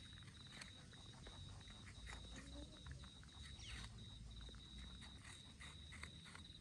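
Two rabbits nibbling and chewing apple flesh: faint, quick, irregular crunching clicks. A steady, high, pulsing tone runs underneath.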